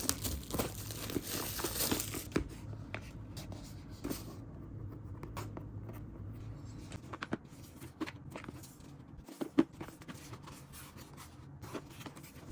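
Album packaging being opened by hand: tearing and crinkling of the wrapping for the first couple of seconds, then scattered small clicks and taps as the contents are handled.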